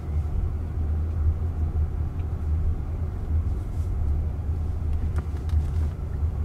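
Steady low road and tyre rumble heard inside the cabin of a Jaguar I-PACE electric car on the move, with no engine note.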